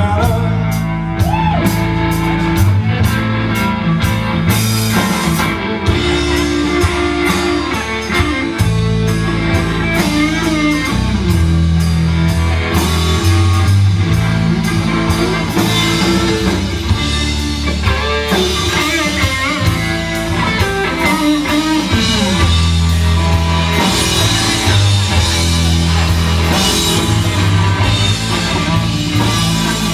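Live rock band playing an instrumental stretch of a song: electric guitars and a drum kit, with no singing.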